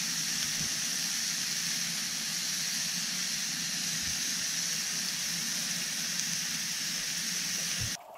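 Beef steak sizzling steadily in oil in a small camping frying pan. The sizzle cuts off abruptly near the end.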